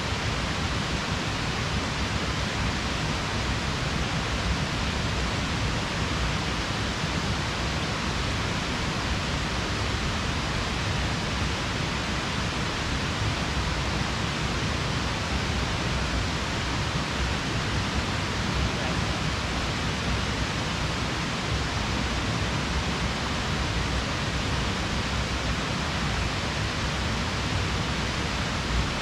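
A steady, even rushing hiss that does not change.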